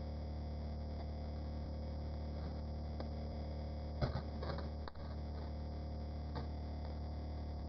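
A steady electrical drone made of many unchanging tones with a strong low hum. A few light clicks and a short rattle come about four seconds in, and another click comes near the end.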